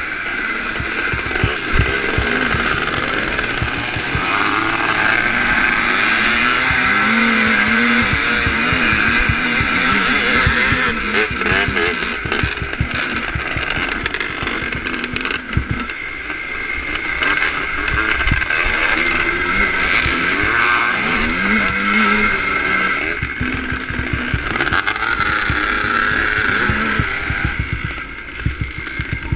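ČZ two-stroke motocross engine heard from on board, its revs rising and falling again and again through corners and straights, with other bikes close by. The low end is full of wind buffeting and bumps on the microphone, and the revs drop near the end.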